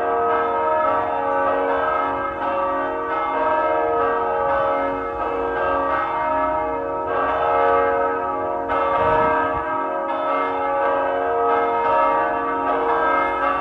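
Church bells ringing, many tones sounding together and overlapping, with a new strike about once a second.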